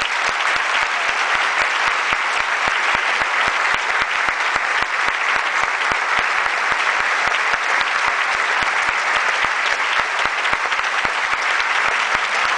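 Large audience applauding, a dense, steady clapping that holds at one level throughout.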